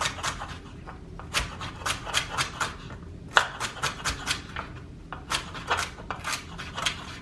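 Chef's knife chopping celery stalks on a wooden cutting board: runs of crisp knocks, several a second, with short pauses between runs.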